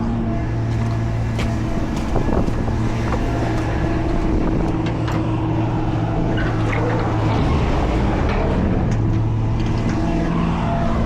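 Pickup truck's engine running steadily on the road, a low even hum over road and tyre noise, with a few light rattles.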